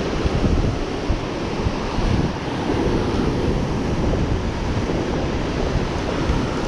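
Ocean surf breaking and rushing, with wind buffeting the microphone: a steady wash of noise.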